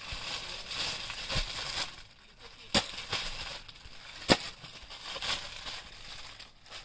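Clear plastic saree packaging crinkling and rustling as it is handled, with two sharp clicks about a second and a half apart.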